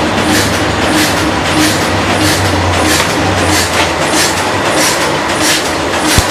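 Large colour laser copier-printer running while it prints: a steady mechanical run with a regular clacking about twice a second. A short thump comes near the end.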